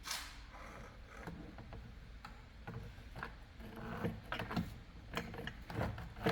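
Clicks and small knocks of tools and parts being handled while a Stihl string trimmer is taken apart to replace its broken drive shaft, the knocks coming more often in the second half.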